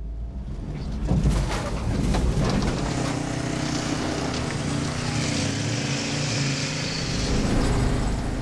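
Pickup truck engine revving under load as it drives through deep mud, getting louder about a second in and then holding steady.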